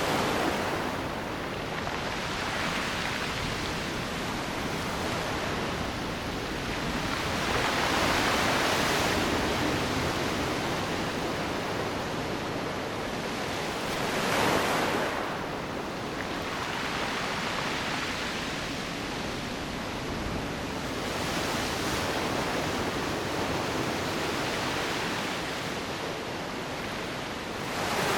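Ocean waves breaking on the shore: a steady wash of surf that swells louder as a wave breaks, about every six or seven seconds.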